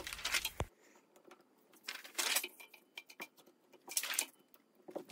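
Large plastic transparency film sheets rustling as they are handled and flipped over, three short rustles about two seconds apart.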